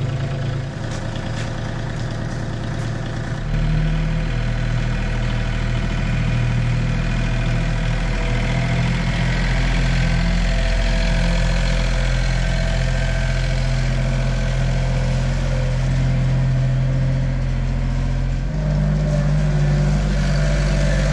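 Farm tractor's diesel engine idling steadily just after being started. About three and a half seconds in, it settles into a louder, deeper note, and it shifts slightly again near the end.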